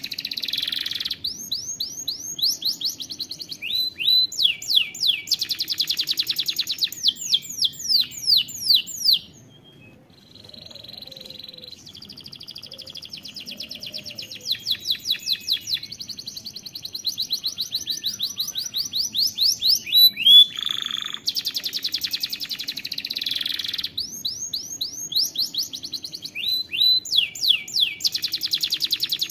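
Domestic canary singing: long rolling trills of rapid, evenly repeated high notes, one phrase running into the next. The song breaks off for a pause of about three seconds near the middle.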